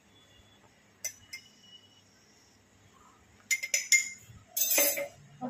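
Small metal spoon clinking against a glass spice jar while scooping out garam masala: two ringing clinks about a second in, a quick run of clinks about three and a half seconds in, then a louder short rustle near the end.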